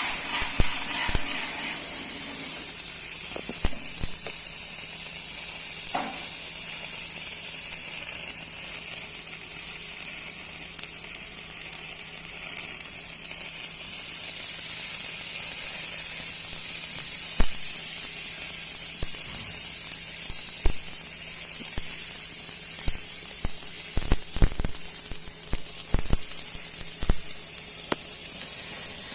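Electric arc welding: the arc's steady high-pitched sizzle with scattered sharp crackles and pops, more of them near the end, over a low steady hum.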